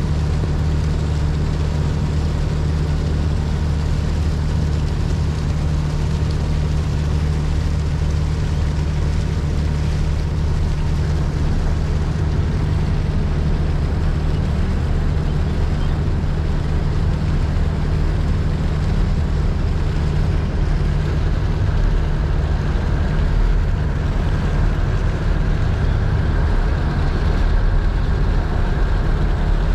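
Steady low drone of the Sabuk Nusantara 71 passenger ship's engine, heard on the open deck, with an even hiss of wind and water over it.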